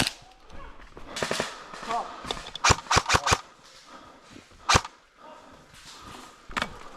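Airsoft guns firing: a quick burst of about four sharp shots near the middle, then a single shot about a second and a half later.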